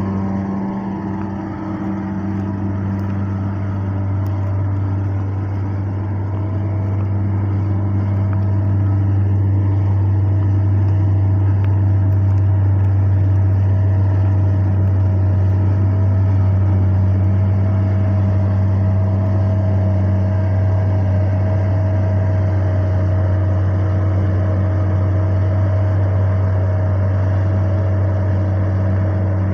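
Combine harvester running steadily: a deep engine drone with a steady higher whine over it, dipping briefly about a second and a half in before settling back to an even level.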